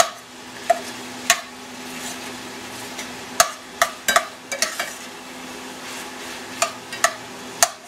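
Ground Italian sausage sizzling in a stainless steel pan as it browns, stirred with a metal slotted spoon. About a dozen sharp clinks and scrapes of the spoon against the pan are scattered through it.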